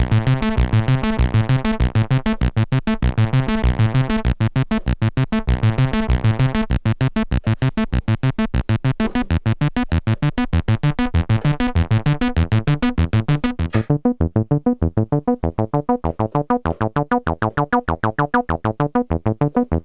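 Donner B1 analog bass synthesizer (a TB-303 clone) playing a fast, repeating held arpeggio with saturation and accent on. About 14 seconds in, the filter is turned down and the notes turn dull and darker.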